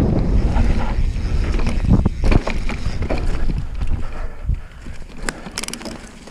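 Mountain bike descending a dirt forest trail at speed: wind buffeting the microphone over tyres rolling on dirt, with scattered knocks and rattles from the bike over bumps. The wind noise eases off toward the end.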